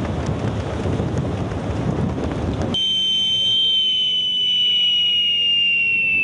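Wind and engine rumble on a ship under way at sea. About three seconds in, this cuts off sharply and is replaced by a steady high-pitched electronic tone that sinks slightly in pitch and glides down at the end.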